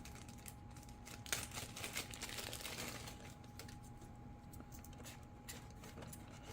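Faint scattered clicks and rustling from handling: the flight battery's plug being fitted and pushed into the battery compartment of a foam RC jet. A faint steady tone runs underneath.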